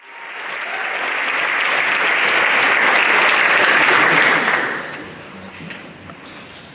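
Audience applauding, swelling quickly and dying away about five seconds in, with a few last scattered claps.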